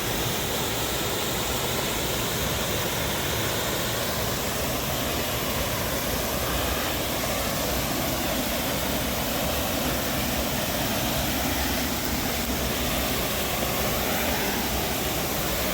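Waterfall and river water rushing steadily, a continuous even noise with no change.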